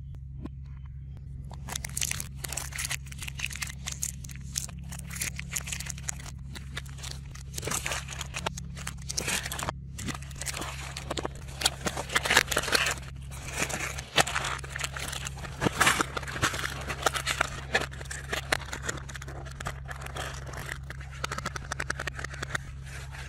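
Plastic candy wrappers and packaging crinkling and rustling as wrapped sweets are handled: a dense, irregular run of small crackles starting about a second and a half in, over a steady low hum.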